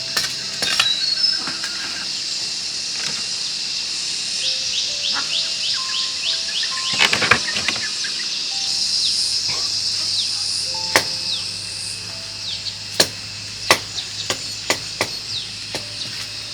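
Steady chorus of insects and birds with runs of short falling chirps, a few soft background music notes, and sharp knocks scattered through, more of them in the second half.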